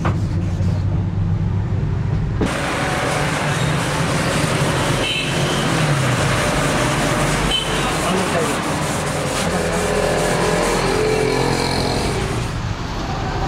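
Road traffic noise with indistinct background voices. A steady low engine hum for the first couple of seconds gives way suddenly to a broader hiss of traffic.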